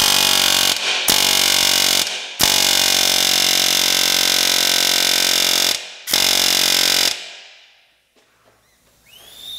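Pneumatic air hammer running in four bursts against a rusted, pressed-in exhaust flange stud, the longest about three seconds; the stud does not budge. The hammering stops about seven seconds in.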